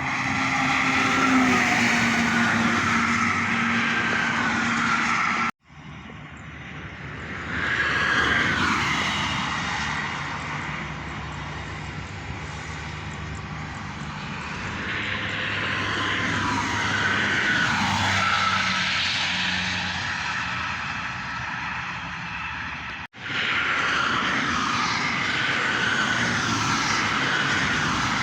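Heavy traffic, buses among it, rushing past at speed on a toll road: a steady whoosh of tyres and engines, with the pitch falling as each vehicle goes by. The sound cuts out abruptly twice, about five and a half seconds in and again about five seconds before the end.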